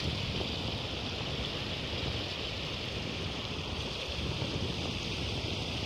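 Steady rushing hiss of a small river flowing, with wind rumbling unevenly on the microphone.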